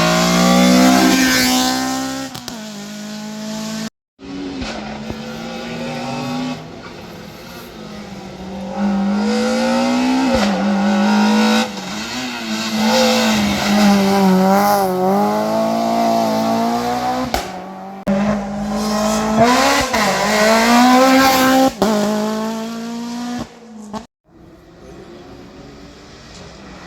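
Race cars' engines at a slalom, revving hard and dropping back again and again as they accelerate and brake between the chicanes. The sound breaks off abruptly three times as one car gives way to the next.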